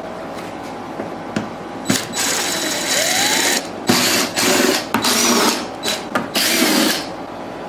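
Cordless drill-driver backing screws out of a reel-to-reel tape deck's metal top plate. The motor runs in about six short bursts, starting about two seconds in, and spins up with a rising whine once.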